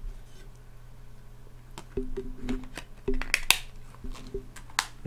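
Plastic Blu-ray case being opened and handled: a run of sharp plastic clicks and snaps starting about two seconds in, the loudest about three and a half seconds in.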